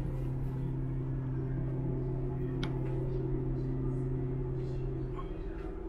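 A ship's horn sounding one long, low, steady blast that stops about five seconds in.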